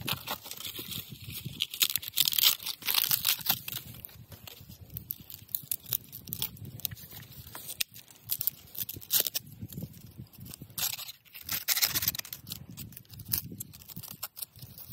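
Dry bamboo strips being split and torn apart by hand, with irregular crackling and ripping. The tearing is loudest about two to three seconds in and again around eleven to twelve seconds.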